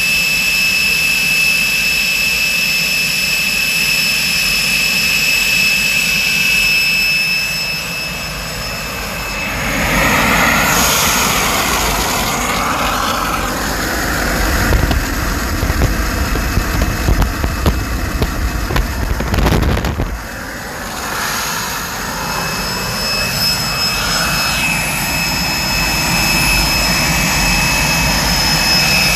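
Walter M701C-500 centrifugal-flow turbojet running steadily on a test stand: a loud roar with a high, steady compressor whine. For several seconds in the middle the whine drops back under a rougher, gusty exhaust roar, then returns.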